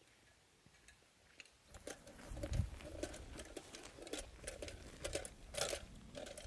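Footsteps crunching through grass at a walking pace, roughly two a second, starting about two seconds in.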